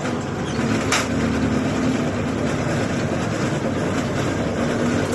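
Lathe running steadily with a low hum and mechanical clatter as it winds a spring, with one sharp click about a second in.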